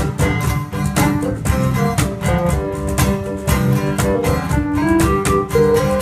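Live acoustic band playing an instrumental break: a strummed acoustic guitar, hand percussion keeping a steady beat of about two strokes a second, and a keyboard playing a lead melody in held notes.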